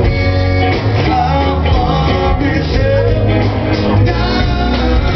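Rock band playing live with singing over electric guitar, bass and drums.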